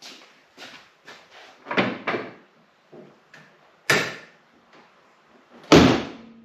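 A series of knocks and clunks of things being handled, about half a dozen spread out, with a sharp knock about four seconds in and a louder, heavier slam near the end.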